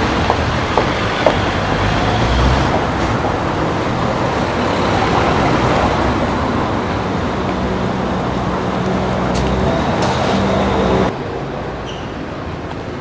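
Street traffic noise: vehicle engines and tyres on a cobbled street, a steady low hum and rumble that drops off abruptly near the end.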